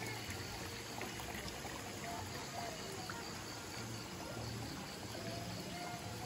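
Steady rush of running water after rain, with insects chirping faintly.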